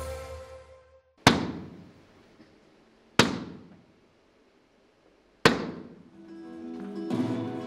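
Three heavy knocks about two seconds apart, each ringing out in a reverberant hall: the traditional three knocks that signal the start of a stage play. Music fades out before the first knock and new music comes in near the end.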